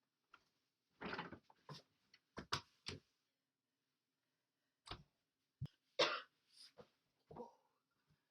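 A person coughing: a string of short coughs about a second in, then another bout about five seconds in, the loudest cough at about six seconds.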